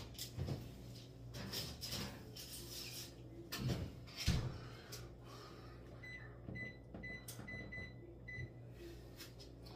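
Clunks and knocks of an oven pan and door being handled, then a run of about seven short high electronic beeps from the oven's keypad as the cook time is set, over a steady low hum.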